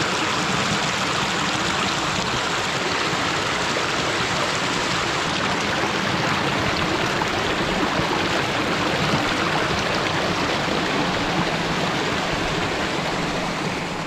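A fast mountain stream rushing and splashing steadily over rocks in small cascades.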